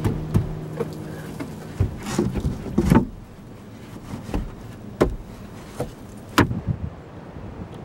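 A plywood cabinet knocking and scraping against a van's floor and wall as it is shifted and pressed into place. A series of sharp wooden knocks, the loudest about three, five and six seconds in.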